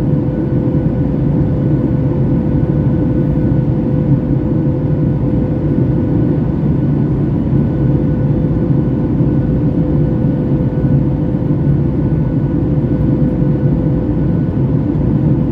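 Boeing 737 MAX 8 jet engines (CFM LEAP-1B) and airflow heard from inside the cabin: a steady, even rumble with a thin steady whine over it.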